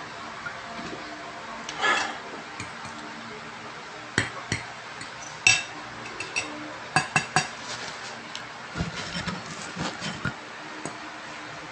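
Metal fork clinking and scraping against a ceramic plate while picking up instant noodles: a scrape about two seconds in, then a scattered series of sharp clinks, densest in the middle.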